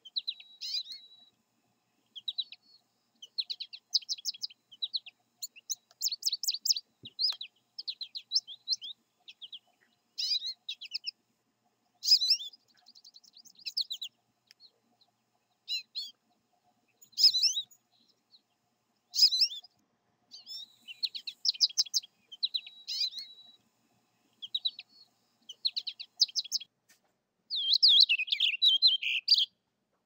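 American goldfinch singing: bursts of rapid, high twittering phrases separated by short pauses, a few holding a brief steady note, with a louder, denser burst near the end.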